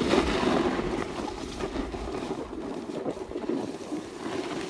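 Snowboard sliding over firm, chunky snow, with wind noise on the microphone that is strongest in the first two seconds and then eases.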